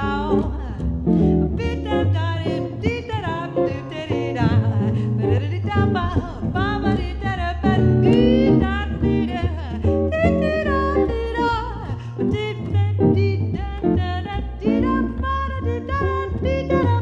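Jazz trio playing: a singer's melodic line over guitar and double bass.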